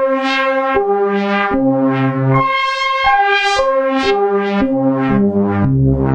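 Casio CZ-1 phase-distortion synthesizer playing a sequence of notes and chords on one of its presets. Each starts with a bright attack that quickly mellows as it sustains, about one to two a second.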